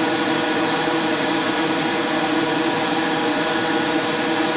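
Airbrush spraying paint with a steady hiss of air over a continuous motor hum from the spray booth's equipment. The high hiss breaks off for a moment about two and a half seconds in, then again for about a second, as the trigger is eased off.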